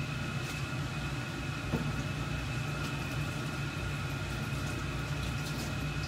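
Pot of salted water at the boil on a gas burner with pork belly simmering under a lid: a steady low rumble of boiling, with faint scattered ticks and a steady high tone under it.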